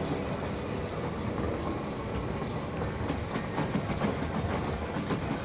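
A gear mechanism running: many meshed gears turning together, making a steady mechanical rumble with faint scattered clicks.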